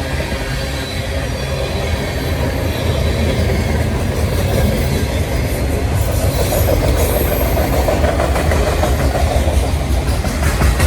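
Manifest freight train's cars rolling past: a steady rumble of steel wheels on the rails, with a brief high wheel squeal about six seconds in and rhythmic clicking of wheels over rail joints near the end.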